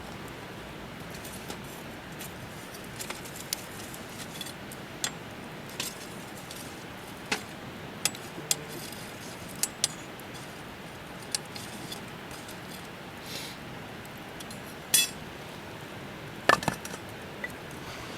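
Wood campfire burning with a steady low hiss and scattered sharp crackles and pops at irregular intervals, a few louder ones near the end.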